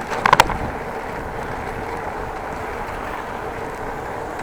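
Steady wind and rolling noise from riding a bicycle, picked up on the rider's camera microphone. A quick cluster of about three sharp clicks comes just after the start.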